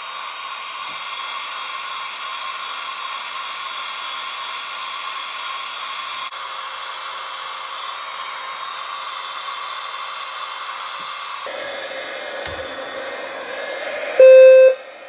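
Heat gun blowing hot air steadily onto a heat detector; its sound changes about three quarters of the way through. Near the end, the fire alarm horn lets out a loud beep, the first of a pulsed series, as the heat detector trips into alarm.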